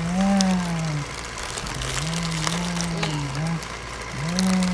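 A person's voice making toy-truck engine noises, three long drawn-out hums.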